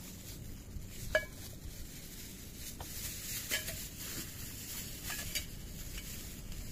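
Two cats eating canned wet food and dry kibble from a shallow dish, chewing, with a few sharp clinks of the dish being knocked, the loudest about a second in.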